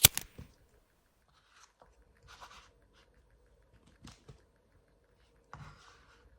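A sharp click at the very start, then a few short, quiet crunches about a second apart: bites and chewing of crispy fried chicken.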